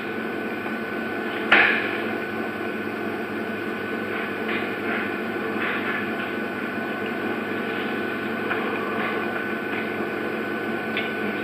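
A single sharp knock about a second and a half in, then a few faint taps, over a steady hiss with a thin high tone.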